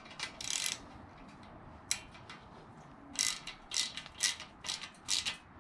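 Hand ratchet wrench clicking as a nut or bolt is tightened. There are a few strokes early on, then a steady run of back-and-forth strokes about two a second from about three seconds in.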